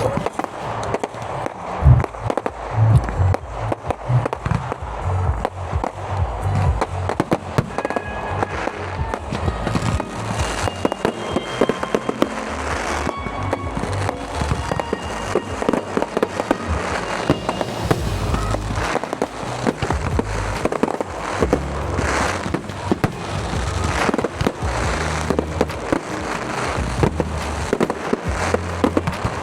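Fireworks display: a dense, continuous stream of bangs and crackles from aerial fireworks, with music with a pulsing bass beat underneath.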